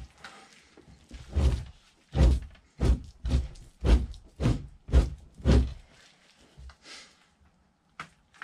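Fleshing knife scraping fat and membrane off a raccoon hide in a rapid run of about eight strokes, roughly two a second, starting a second and a half in. A few fainter scrapes follow.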